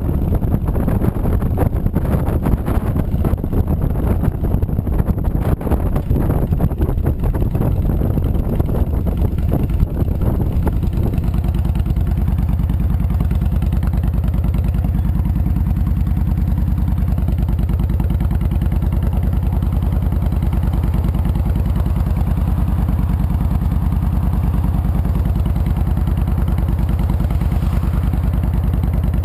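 Honda VTX 1300C V-twin engine: it runs with wind rush as the bike rolls along and slows, then settles into a steady idle about eleven seconds in with the motorcycle stopped.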